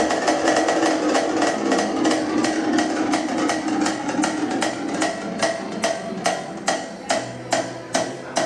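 Music with a steady percussive beat: rapid sharp clicking hits over sustained tones, the hits spacing out and standing more apart near the end.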